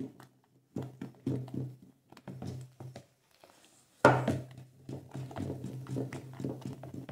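Wooden spoon stirring thick homemade detergent in a plastic bucket: quick repeated strokes, about three a second, with two short pauses and a loud thunk about four seconds in.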